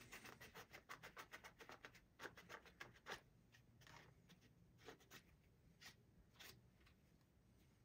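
Quiet scrubbing on a revolver's metal parts during cleaning: rapid back-and-forth strokes, several a second, for about three seconds, then a few slower, spaced strokes.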